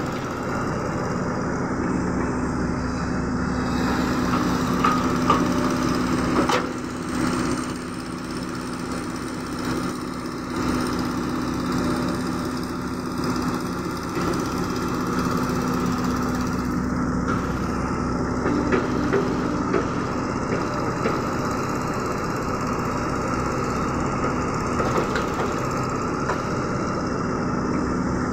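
Caterpillar E120B hydraulic excavator's diesel engine running steadily under working load, with now and then a sharp knock from the bucket and soil.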